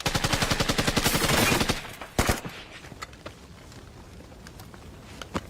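Automatic gunfire in a film shootout: a burst of rapid fire lasting almost two seconds, a single loud shot just after, then a few faint scattered shots.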